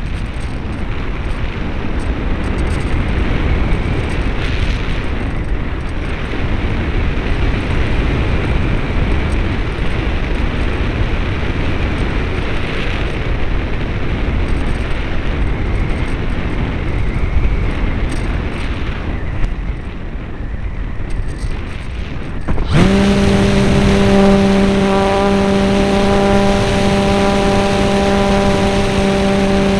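Air rushing past the onboard camera of an RC model plane as it glides, then, about 23 seconds in, its motor suddenly starts and runs at a steady, high-pitched tone.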